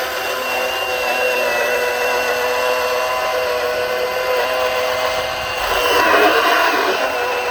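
Milwaukee Hatchet battery pruning saw cutting wood, its electric motor whining steadily. Near the end the cut gets louder and rougher as the motor works under load, the whine dipping only slightly.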